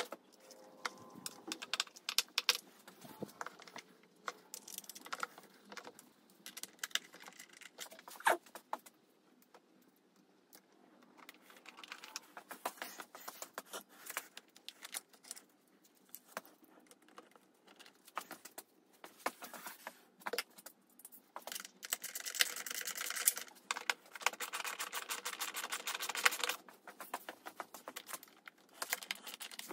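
Small metal hand tools and parts being handled: scattered clinks and clicks, with a spell of rapid, dense clicking about three-quarters of the way through.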